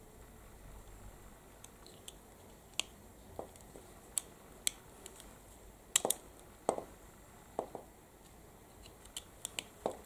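Plastic multi-pin wiring connector and wires being handled: irregular small sharp clicks with short rustles, the loudest clicks about six seconds in.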